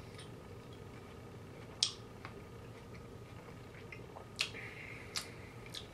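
Quiet eating: about five short, sharp clicks and wet smacks spread out, the loudest about two seconds in, as berries are picked by hand from a small bowl and chewed.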